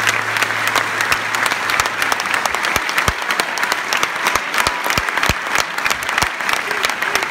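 Concert audience applauding, dense clapping throughout at the end of a song. A low steady hum underneath stops about two and a half seconds in.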